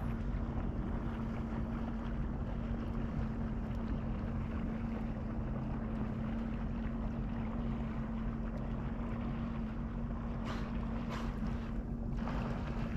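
Jet ski engine idling steadily with a low hum, under wind on the microphone and water noise. A few short whooshes come near the end.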